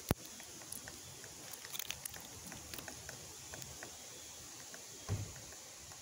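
Faint, irregular taps of a woodpecker pecking at a tree trunk. A sharp click sounds right at the start, and a dull low thump comes about five seconds in.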